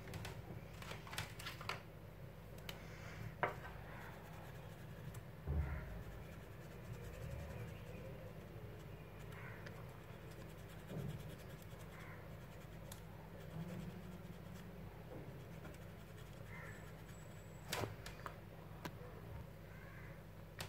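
Small handling sounds of a hand working on paper with a pencil-like tool: scattered light taps and scratches, against a low steady hum.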